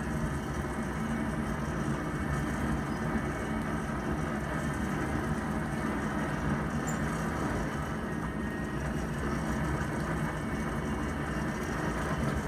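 Coal forge burning hard on forced air from its blower: a steady rumble of blower and fire.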